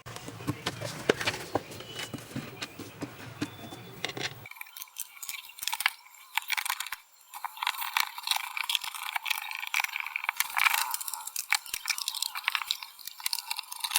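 Irregular clicks, crackles and small knocks of a plastic desktop speaker cabinet being handled and closed up. About four seconds in, the low end drops out abruptly, leaving only thin crackling.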